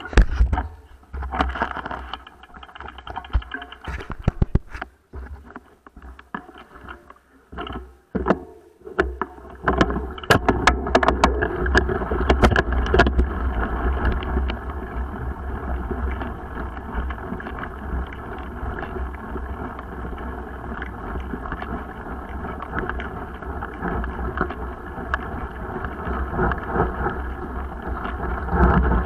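Mountain bike riding noise picked up by a bike-mounted action camera. Scattered knocks and rattles come over the first several seconds, and from about ten seconds in a steady rumbling noise of wind and rolling runs on the microphone.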